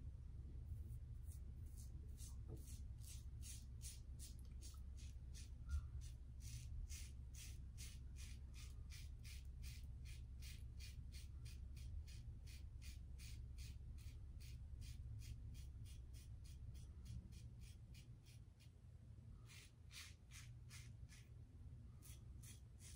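Safety razor scraping through lathered stubble in quick short strokes, about three a second, with a pause of a few seconds past the middle before the strokes resume near the end. A steady low hum runs underneath.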